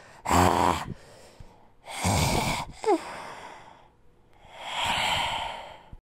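A person's voice performing female Neanderthal sound effects: two short, loud breathy gasps, a brief falling squeak, then a longer breathy exhale near the end.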